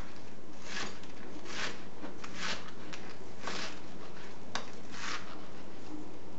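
Chef's knife slicing through napa cabbage onto a plastic cutting board: about six short cuts, roughly one a second.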